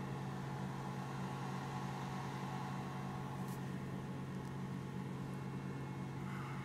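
Steady low mechanical hum of machinery running, even and unchanging.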